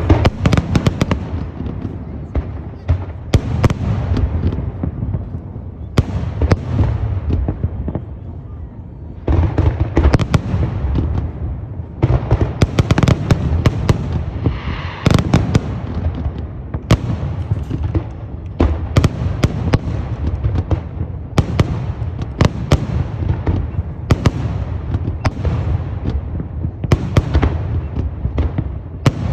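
Fireworks display: a rapid, continuous string of aerial shell bursts, sharp bangs following one another every fraction of a second, each with a low rumble and echo behind it, easing briefly about eight seconds in before building again.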